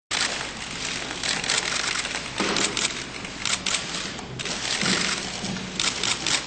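Many press cameras' shutters clicking rapidly and overlapping, coming in repeated dense bursts.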